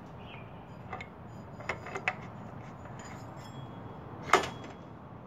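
A few light metal clicks, then one louder clank about four seconds in, as the driven pulley of a TAV torque converter is slid onto its keyed jackshaft and seated.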